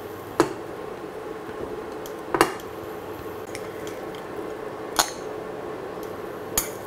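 A spoon and a glass bowl clink and knock against a non-stick pan and each other, about four short sharp knocks spaced a couple of seconds apart, over a faint steady hum.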